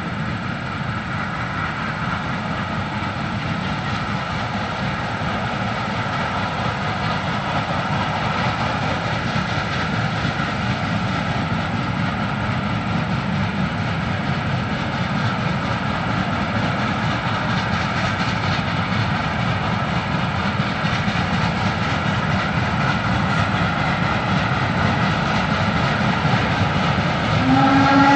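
Pacific Coast Shay geared steam locomotive working upgrade with a steady, dense exhaust that grows louder as it approaches. About a second before the end its steam whistle opens with a slight upward slide in pitch, then holds one steady tone.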